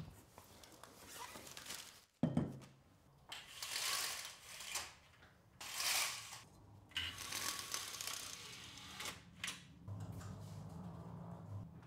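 A person moving about and handling things: a sharp knock about two seconds in, then several short bursts of rustling and scraping, with a faint low hum near the end.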